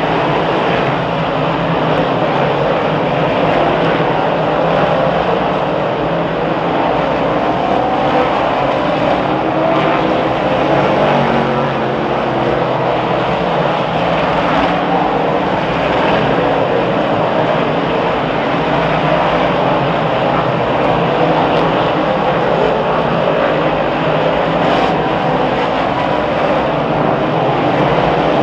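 A field of 358 dirt modifieds, small-block V8 race engines, running together as one steady, dense engine sound.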